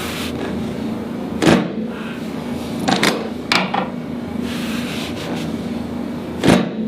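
Sharp knocks from a chiropractic adjustment on a treatment table. There are two loud ones about five seconds apart, the first about a second and a half in and the second near the end, with a couple of softer knocks between them, over a steady low hum.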